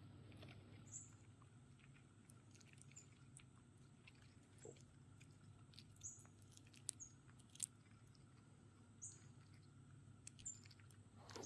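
Faint scattered clicks and crunches of a chipmunk eating at close range, over a quiet steady background. A few faint, brief high chirps are also heard.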